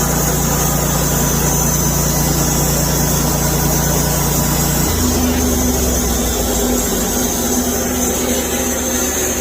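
Sawmill engine running steadily under a constant high hiss; its note changes about five seconds in.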